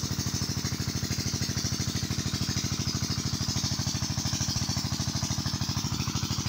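Small engine running at a steady speed with a fast, even beat.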